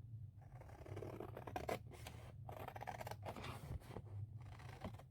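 Scissors cutting through a sheet of scored scrapbook paper, a run of snips with short pauses between them.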